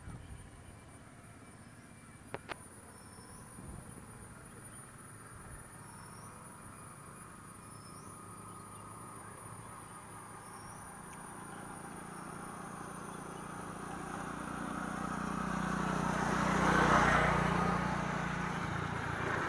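A steady high-pitched insect drone with a few faint chirps, then a vehicle approaching and passing, growing louder over several seconds and loudest a couple of seconds before the end.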